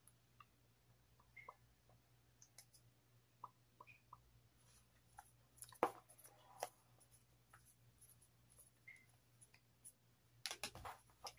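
Near silence: quiet room tone with faint scattered clicks and taps, a couple slightly louder around the middle and a quick run of them near the end.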